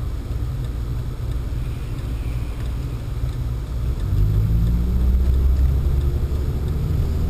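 Pontiac Sunfire's engine and road noise heard from inside the cabin while driving: a steady low rumble. About four seconds in, the engine note rises and gets louder as the car accelerates.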